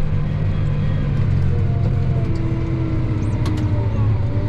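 Farm tractor engine running steadily while pulling a cultivator, with faint higher tones drifting slowly in pitch over the low drone.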